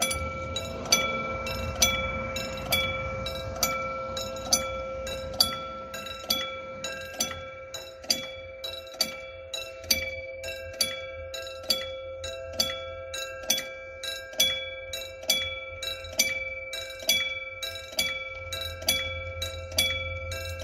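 Railway level-crossing warning bell ringing repeatedly, the signal that a train is approaching. Its ringing strikes come about once a second at first and roughly twice as often from about eight seconds in.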